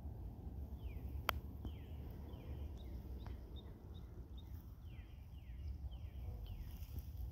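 A bird calling over and over in short, downward-sliding notes, a few high chirps among them, over a steady low rumble of wind on the microphone. There is one sharp click about a second in.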